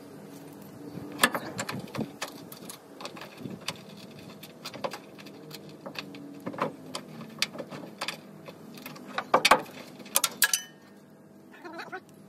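Irregular clicks and light knocks from hands handling a newly mounted rubber air spring and its steel bracket on a pickup's rear axle, busiest and loudest about nine to ten and a half seconds in, over a faint steady hum.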